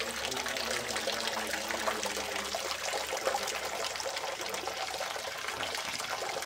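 Steady running, splashing water, which cuts off abruptly at the end, with faint voices underneath.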